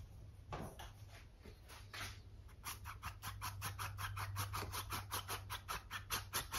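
Acrylic paintbrush being rinsed: a few scattered scratches, then from a little under three seconds in a quick steady run of scratchy strokes, about six a second, as the brush is worked back and forth in the rinse water against the jar.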